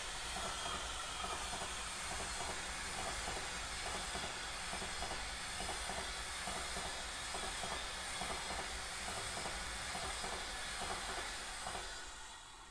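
Passenger coaches of the 'Red Arrow' express train passing close by on the next track: a steady rush of wheel-on-rail noise, dense with rapid clicking, that fades away near the end as the last coach goes by.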